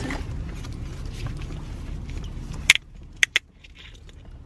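Low steady rumble inside a car. A little past halfway it is cut by a sharp click, the rumble drops away, and two quick clicks follow about half a second later.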